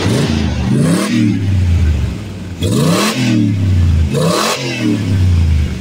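Car engine being revved in short blips, about three times, each rev rising quickly and dropping back to idle.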